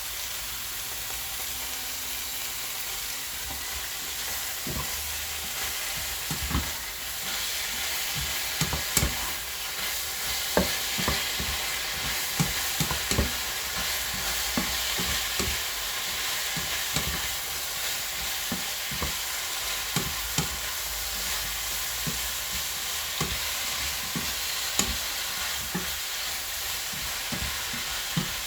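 Stir-fry food sizzling steadily in a hot pan. From about four seconds in, a cooking utensil knocks against the pan again and again at an irregular pace as the food is stirred.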